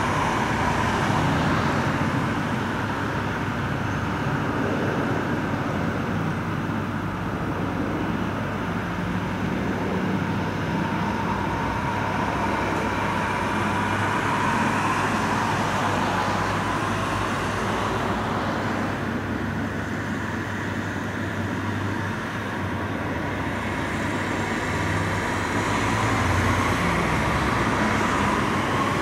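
Bell 206 JetRanger helicopter flying past: the steady whine of its Allison 250 turboshaft over a low rotor rumble, the whine wavering slightly in pitch as it moves.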